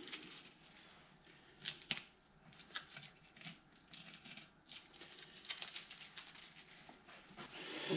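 Faint rustling and crinkling of masking tape being pressed and worked over a badge on a chrome hubcap by gloved fingers, with light scattered ticks and taps.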